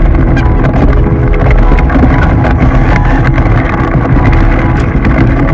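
Loud, steady rushing and rumbling on the microphone with many small clicks and knocks throughout, as a sea kayak moves through brash ice.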